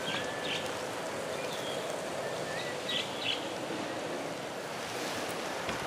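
Steady outdoor background rush with short high chirps twice, near the start and about halfway through.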